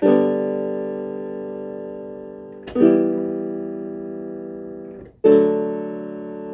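Closing instrumental chords on a keyboard with no singing: three chords struck about two and a half seconds apart, each left to ring and fade.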